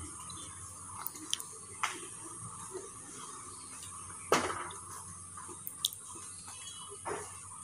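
Samosas deep-frying in oil in a wok on a low flame: a faint, steady sizzle. Several short sharp clicks from a metal spoon knocking the wok as it turns them; the loudest comes about four seconds in.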